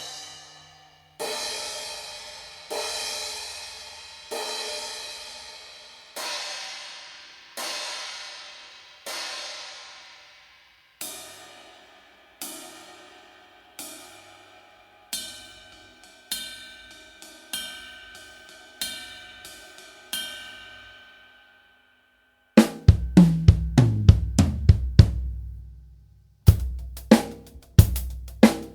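Arborea cymbals struck one hit at a time, about one every one and a half seconds, each left to ring and fade; the later hits are shorter with a clearer ringing tone. About two-thirds of the way in, a full drum kit groove with kick drum, snare and hi-hat starts and is the loudest part.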